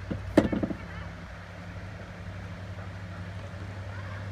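A sharp hard knock about half a second in, followed at once by a quick run of smaller knocks, over a steady low hum.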